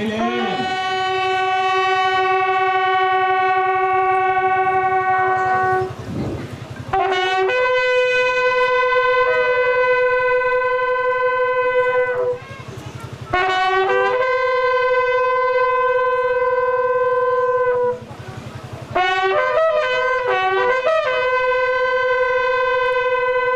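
Several curved horn trumpets blown together in four long held blasts of about five seconds each, with short breaks between them. The first blast is lower in pitch and the later ones higher. The last one starts ragged and wavering, as the horns come in unevenly, before it steadies.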